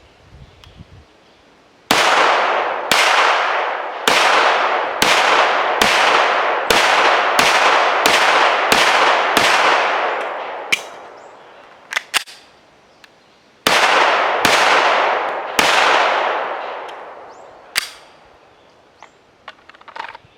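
A handgun fired ten times in a fast string, about one shot a second, each shot echoing, then the small clicks of a magazine reload, then three more quick shots. A sharp snap follows near the end.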